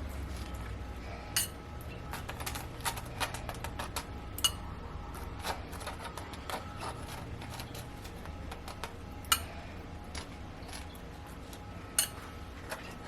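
A spoon tapping and scraping on a plate in scattered light clicks as pizza sauce is spread over toasted bread slices, over a low steady hum.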